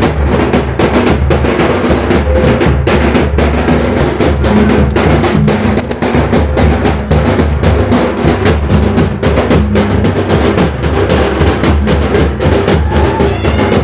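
Live Santali folk drumming for dong dance music: a hand-played drum slung at the waist struck in a fast, dense, steady rhythm, with held tones of other music underneath.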